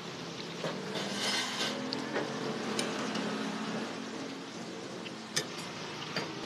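Hot oil sizzling and bubbling around pieces of dough deep-frying in a wok, with a few light clicks and one sharp click about five seconds in.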